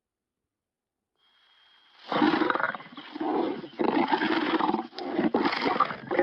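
Lion roar sound effect, deep in pitch: a run of about five rough roaring bursts, each under a second, starting about two seconds in after a quiet lead-in.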